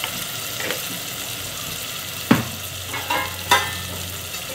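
Onions and tomatoes sizzling in oil in an aluminium pan, with a steady frying hiss. A metal ladle clinks against the pan three times, the loudest about two seconds in.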